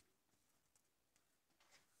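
Near silence, with a few faint ticks and a soft rustle near the end as a circuit board is slid across a paper towel.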